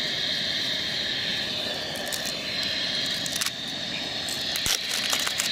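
Steady rushing noise of the burner heating a pressure cooker, over a steady high insect chirr, with a few light clicks and taps in the second half.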